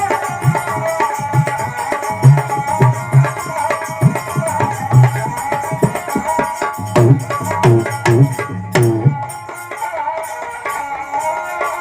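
Instrumental interlude of a Rajasthani folk devotional song: a hand drum keeps a rhythm under a sustained melodic instrument line. The drumming stops about nine seconds in, leaving the melody alone.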